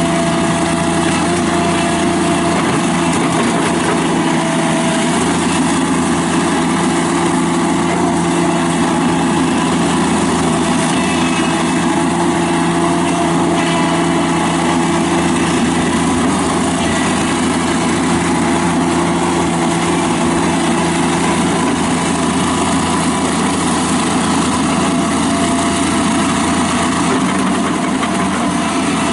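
Kubota diesel engine of a Toro Dingo TX525 mini skid steer running at a steady speed, with an even pitch and no revving.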